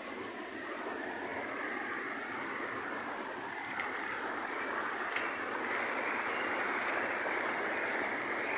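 Muddy rainwater runoff flowing in a steady rush, a little louder from about three seconds in, with a couple of faint clicks.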